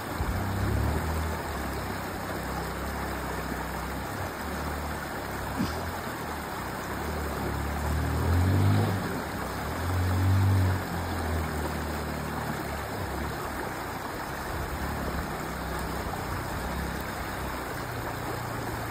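Steady rush of a flowing river. A motor vehicle's engine runs low under it and swells twice in pitch and loudness, about eight and ten seconds in.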